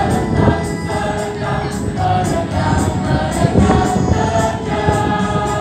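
A mixed choir of high-school boys and girls singing an Indonesian patriotic song together, continuously and loudly.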